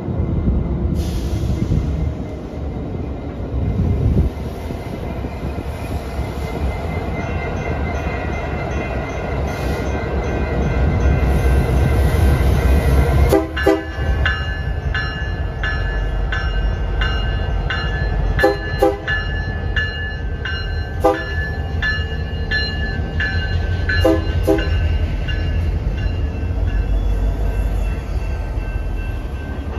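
BNSF local freight train's diesel locomotives passing with a deep engine rumble, the locomotive horn sounding several tones at once, faint at first and growing loud about halfway through.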